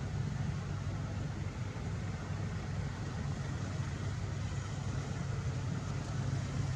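A steady low hum with a background hiss, like a motor engine running out of sight.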